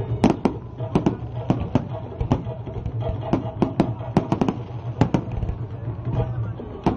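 Fireworks going off in an irregular run of sharp bangs, two or three a second, with voices and a steady low hum underneath.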